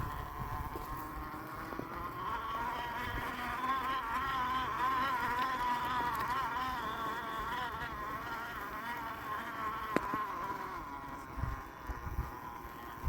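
Axial SCX10 II RC crawler's electric motor and gears whining, the pitch wavering up and down as throttle and load change. A single sharp click comes about ten seconds in.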